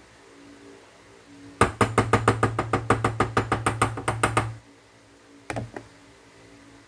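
Gas stove's electric spark igniter clicking rapidly, about eight clicks a second over a low buzz, for about three seconds before stopping suddenly. A wooden spoon is then set down on the counter with a couple of light knocks.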